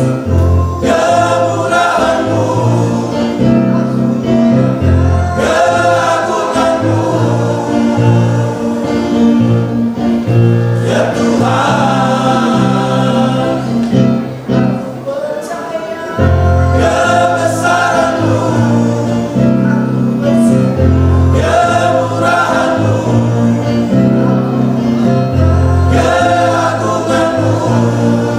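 Choir singing a sacred song in Indonesian over a steady instrumental bass line, easing off briefly about halfway through before the full sound returns.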